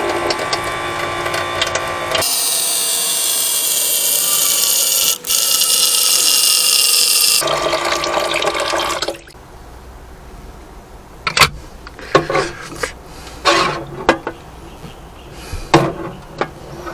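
Water running from a faucet and splashing into a stainless steel sink, loudest for about five seconds in the middle and shutting off about nine seconds in. After it, a scatter of sharp knocks and clinks as boiled eggs are moved from the egg cooker into the sink.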